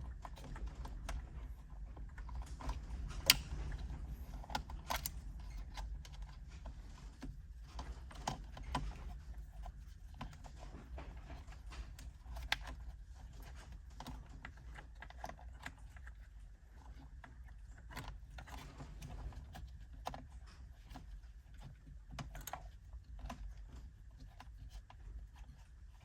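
Irregular light clicks and taps of small plastic parts and wiring being handled and pressed into place in a steering wheel hub, with one sharper click about three seconds in, over a steady low hum.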